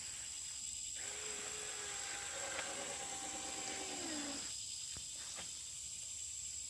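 Steady high-pitched drone of insects. From about a second in, a faint pitched hum joins it, then drops in pitch and fades about four seconds in.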